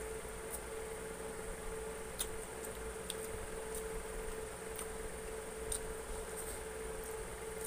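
Close-up eating sounds: scattered small wet clicks and smacks of chewing chicken wings and rice eaten by hand, over a steady hum.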